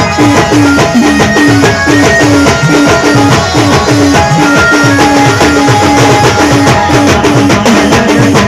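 Timli band music: a fast, steady drum beat of about three strokes a second under a held melody line.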